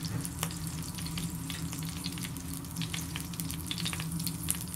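Oil and melted garlic butter sizzling in a frying pan, with many small, irregular crackling pops over a steady low hum.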